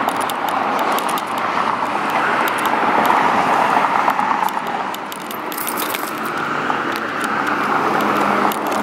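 Steady street traffic noise from passing cars, rising and falling slowly, with the light jangle of a dog's metal chain collar as the dog walks on the leash.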